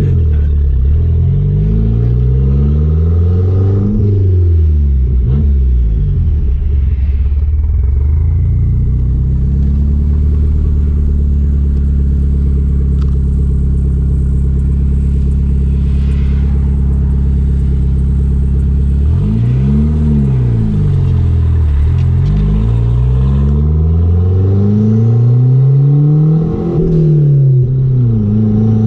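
Chrysler Conquest's turbocharged Mitsubishi G54B four-cylinder engine under way, revving up and easing off several times. There is a steady cruise of about ten seconds in the middle.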